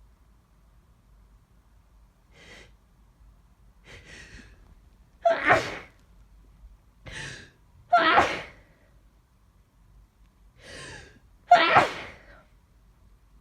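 Three loud human sneezes, about 5, 8 and 12 seconds in, each preceded by a sharp gasping inhale: cold or flu sneezes.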